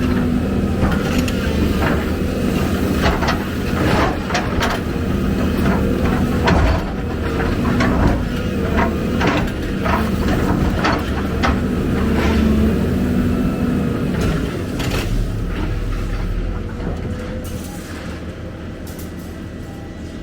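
Heavy diesel excavator engine running steadily under load, with repeated sharp metallic clanks and knocks from the machine working, easing off in the last few seconds.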